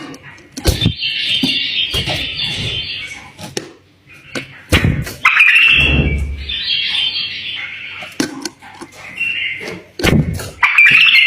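A pet bulbul singing in several warbling phrases of a second or two each, with a few dull knocks in between.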